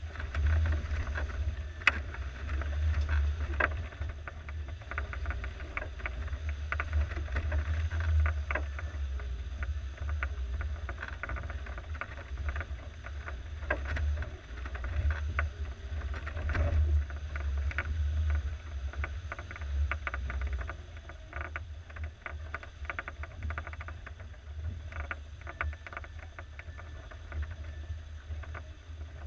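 Engine of a 1987 Suzuki SJ413 off-roader running at low revs as it crawls over rough, muddy ground, with frequent knocks and rattles from the body and suspension.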